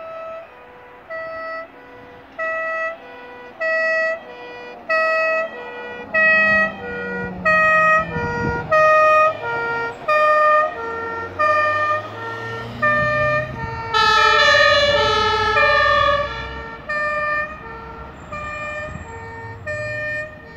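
Two-tone siren (Martinshorn) of German emergency trucks on an emergency run, alternating between a high and a low note about once a second, with truck engine and tyre rumble as the trucks pass. About two-thirds of the way in, a second siren overlaps the first and the sound is loudest.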